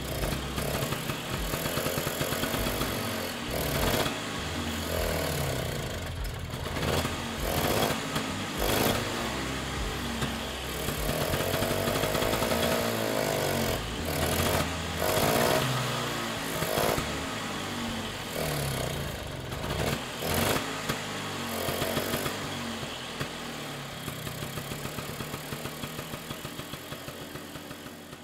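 A Vespa Sprint's two-stroke single-cylinder engine runs unevenly while carburettor cleaner is sprayed into its running carburettor, its speed repeatedly rising and sagging. Near the end it slows to fading, evenly spaced firing beats as it is switched off.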